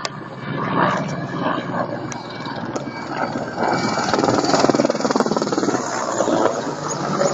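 Attack helicopters flying past: a dense, rapid, even chopping with engine noise that swells and grows louder about four seconds in.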